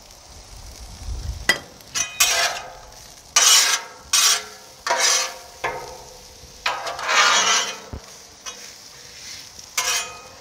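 Metal spatula scraping and turning sliced onions on a hot, oiled steel griddle top: a run of short, sharp scrapes starting about a second and a half in, over a light sizzle.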